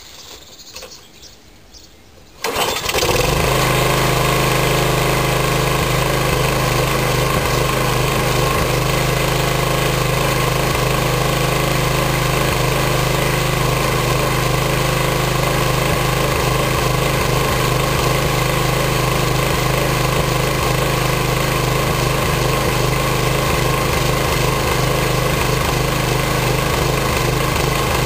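Lawn mower engine, already warm, catching about two and a half seconds in and then running steadily at an even speed. It keeps running after its carburettor and governor-spring repair.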